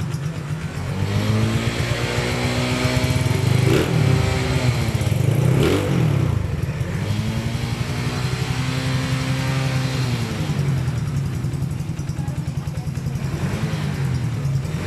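Tuned four-stroke scooter engine with a 54 mm big-bore block, ported and polished head and racing cam, revved up and down repeatedly in a sound check. The pitch climbs and holds, dips sharply twice around four and six seconds in, climbs again, falls back at about eleven seconds, and rises once more near the end.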